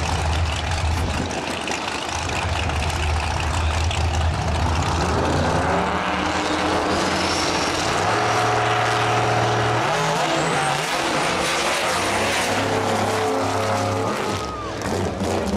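Two drag-race engines, a red Ford pickup's and a blue Chevy's, running with a low rumble at the starting line, then revving and launching at full throttle down the strip, their pitch climbing in steps through the gear changes. A high whine rises over the engine noise during the pass.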